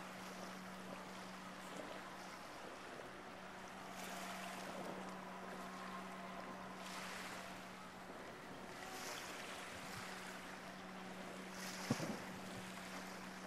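Faint wind and water noise over a steady low hum, with one muffled boom from a distant firework burst about twelve seconds in.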